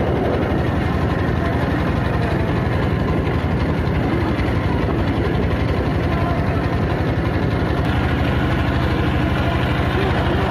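Engine of a wooden river motorboat running steadily, heard from aboard, its low pulsing throb unbroken throughout.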